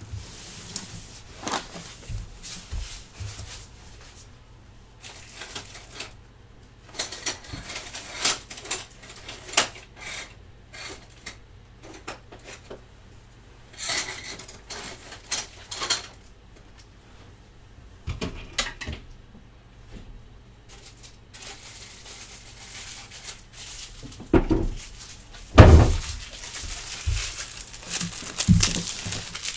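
Scattered clicks, knocks and light clatter of someone moving about and handling household things, with a few heavier thumps near the end, the loudest about 26 seconds in.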